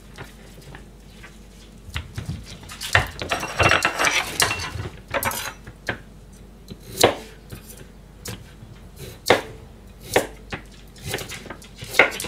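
A kitchen knife cutting vegetables on a plastic cutting board. A few seconds in, a stretch of clattering from kitchen things being handled, then separate sharp knocks of the blade hitting the board as a carrot is sliced, about one a second.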